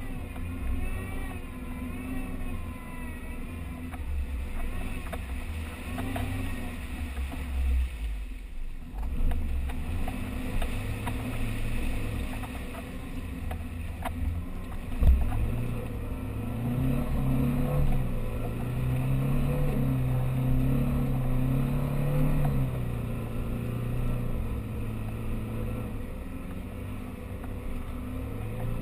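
Off-road 4x4's engine running, revving up and holding higher for several seconds after a sharp knock about halfway.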